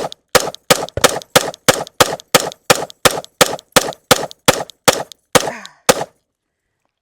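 Glock 45 9mm pistol fired in a rapid, evenly paced string of about seventeen shots, roughly three a second. The string stops about six seconds in as the magazine runs empty.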